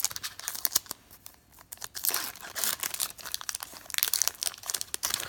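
Trading card pack wrapper crinkling and tearing as it is ripped open by hand, with dense crackles that ease off briefly about a second in, then pick up again.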